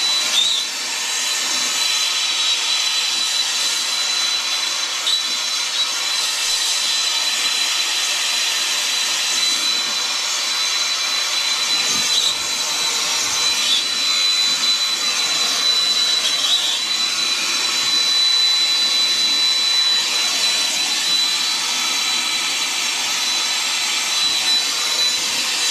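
Hand-held soldering torch with a small tip burning with a steady hiss and a thin high whistle, its flame on a copper pipe and brass lead-free ball valve joint, heating it to melt solder.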